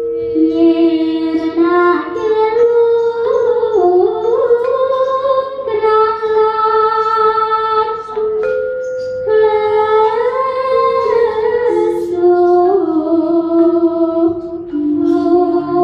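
A woman's voice singing a Javanese sindhen vocal line for gamelan. She holds long notes that bend and slide between pitches.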